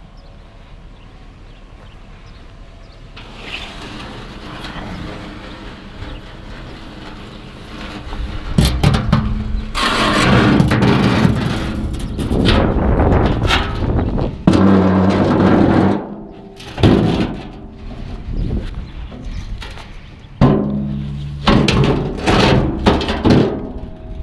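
A bathtub being wrestled into a pickup truck bed: after a quiet start, repeated heavy knocks and scraping as the tub is dragged, bumped and set down, some impacts ringing with a hollow, drum-like boom.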